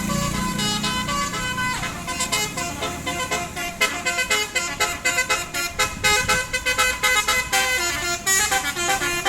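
Bus telolet horn, a multi-tone electric horn, playing a quick tune of short notes, one after another.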